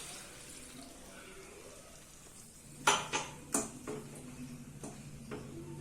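A utensil clinking against a cooking pot several times, starting about halfway in, over a faint steady low hum.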